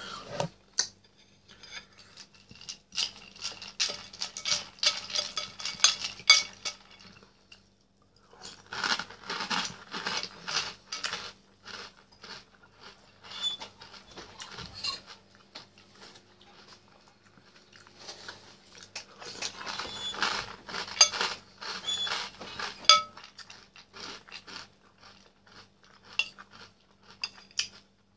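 Metal spoon clinking and scraping against a bowl of chocolate cereal balls in milk, mixed with the crunch of the cereal being chewed. The clinks come in three spells of rapid strokes with quieter pauses between.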